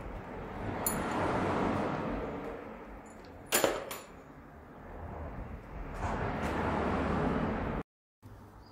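Metal tool clinks and handling noise on an alloy wheel clamped in a tyre changer, with one sharp metallic clink about three and a half seconds in. Under it a rushing hiss swells and fades twice.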